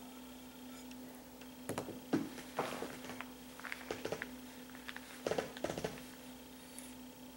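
Soft, irregular taps and scrapes of a toddler eating from a bowl with a spoon, several short clusters from about two seconds in, over a steady faint hum.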